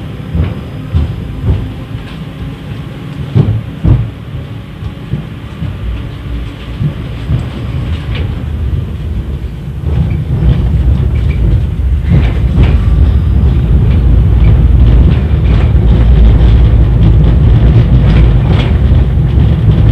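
Low rumble of a 71-931 Vityaz tram running along the track, heard from inside the car, with knocks and clatter from the wheels. About halfway through the rumble grows louder and steadier.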